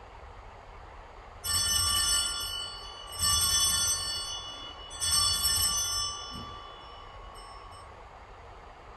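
Altar bells rung three times, each ring a bright cluster of bell tones fading over about a second and a half, marking the elevation of the chalice at the consecration of the Mass.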